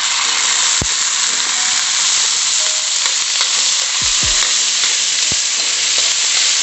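Sardine juice sizzling in hot oil in a wok, a steady loud hiss, while a metal ladle stirs it with a few knocks against the pan.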